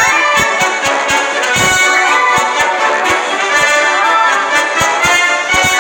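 Lively brass-band music with trumpets and trombones over a steady, even beat.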